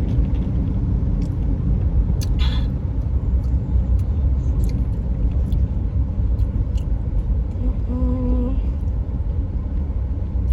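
Steady low rumble of a car heard from inside the cabin, engine and road noise. A brief louder sound comes about two seconds in, and a short steady tone near eight seconds.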